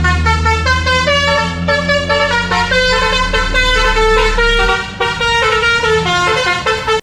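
Toy 'telolet' bus's electronic sound module playing the melodic multi-tone telolet bus horn tune over a steady low engine hum, stopping abruptly at the end.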